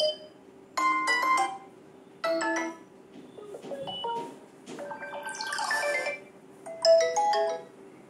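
Vivo Y90 phone ringtone previews playing from the phone's speaker: five or six short snippets of chimes and melody, one after another, each stopping abruptly.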